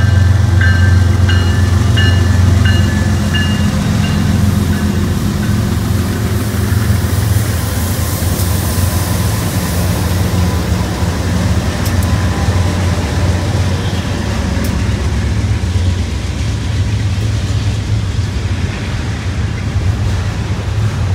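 BNSF diesel freight locomotives running past under power, their engine drone loudest in the first few seconds, giving way to the steady rumble and rattle of double-stack intermodal cars rolling by. A grade-crossing bell rings in the first few seconds.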